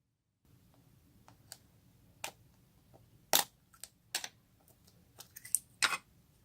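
Homemade fluffy slime being worked by hand, making irregular sticky clicks and pops. The sounds start about half a second in, with a few louder pops in the second half.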